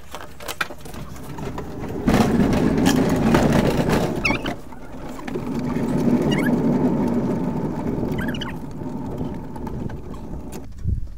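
Tyres of a Morris Minor Traveller being pushed by hand, rolling and crunching over gravel, heard through a camera fixed to the car's body. The noise comes in about two seconds in, is loudest and roughest for the next couple of seconds, then runs smoother and fades after about eight seconds.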